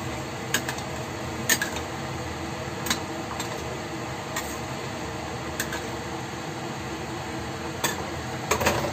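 Metal spatula clinking and scraping against a stainless steel pan as a whole chicken is moved in its sauce: about seven sharp clinks, a second or so apart, over a steady background hum.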